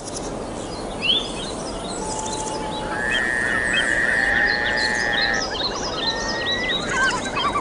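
Outdoor nature ambience over a steady hiss: many short bird chirps and whistles, with one long, steady whistled note from about three seconds in to about five and a half seconds.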